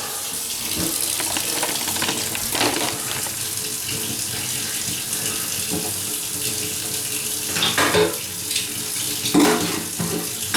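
Water running steadily from a tap into a sink, a constant rush, with a few brief louder splashes or knocks about a quarter of the way in and twice near the end.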